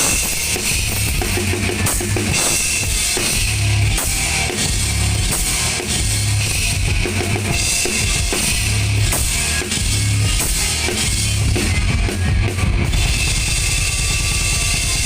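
Rock drum kit played during a band's sound check: a regular bass-drum beat with cymbals over it, the cymbals dropping out about thirteen seconds in.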